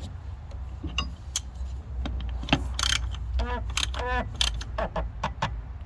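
A diesel fuel filter cap being tightened down, with scattered clicks and knocks of the cap and tool and two short squeaks about three and a half and four seconds in. The cap had been loose, and the owner suspects it let air in so the fuel drained back, causing the hard cold starts.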